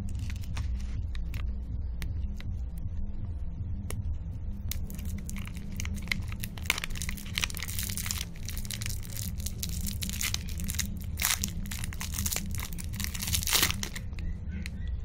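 Clear plastic (cellophane) lollipop wrapper being twisted and pulled off by hand, crinkling and crackling in quick, irregular bursts that grow busiest over the second half, over a steady low hum.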